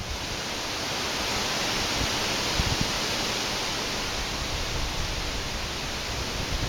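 Strong wind rushing steadily, with a few brief low gusts buffeting the microphone.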